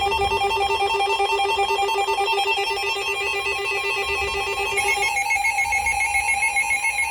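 Electronic emergency alert tone: a steady, rapidly trilling set of tones that changes to a different set of tones about five seconds in.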